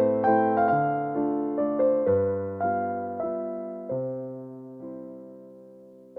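Background piano music: a gentle melody over chords, its last chord held and fading away near the end.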